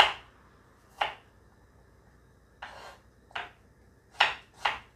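Kitchen knife slicing a red onion on a wooden chopping board: about six sharp knife strikes on the board at uneven spacing, the last two closer together, with a softer drawn-out slicing cut about two and a half seconds in.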